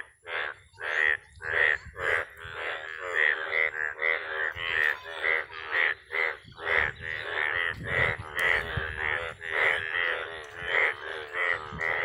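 A chorus of breeding male Indian bullfrogs calling: short, loud croaks repeated about two a second, with more frogs joining and the calls overlapping from about two seconds in.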